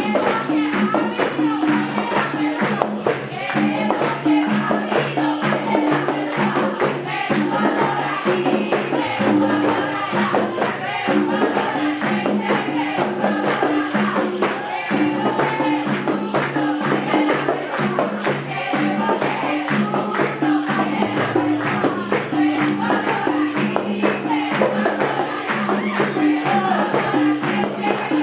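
Upbeat song with singing, a repeating bass line and a steady tambourine-like beat.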